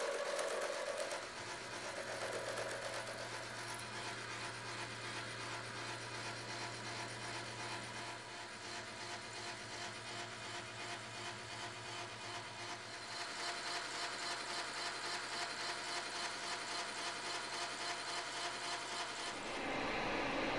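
Metal lathe turning a square-sectioned metal part held between centers, the cutting tool taking an interrupted cut: a fast, even ticking over the machine's steady hum, a little louder after about 13 seconds. Near the end the sound switches to a milling machine running.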